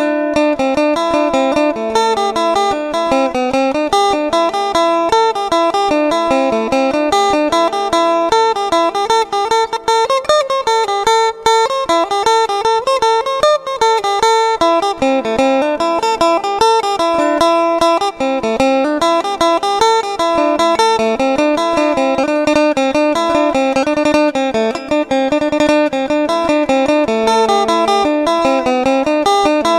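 Background music led by a plucked guitar playing a running melody over a steady beat.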